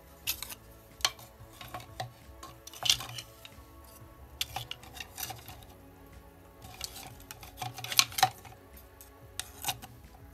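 Irregular clinks and knocks of hard kitchenware being handled, the loudest about three seconds and eight seconds in.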